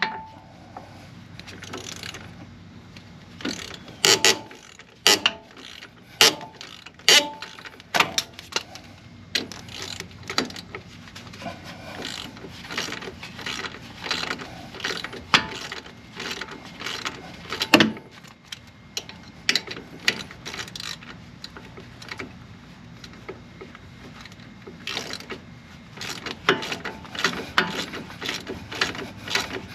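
Hand ratchet wrench clicking in irregular runs, with sharp metal clanks and ringing clinks of tools and hardware, as fasteners come off a pickup truck's front suspension.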